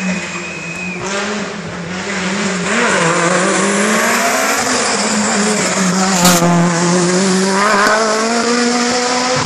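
Hill-climb race car engine at high revs accelerating up the course, its pitch rising and dropping several times through gear changes. A sharp crack about six seconds in.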